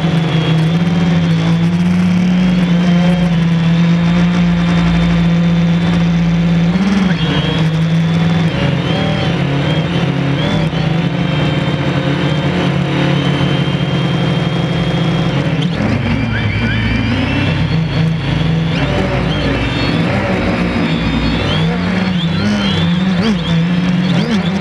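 A drone's electric motors and propellers buzzing loudly right at the microphone, a steady pitched hum whose pitch shifts up and down briefly about seven seconds in and more often in the second half as the drone changes speed.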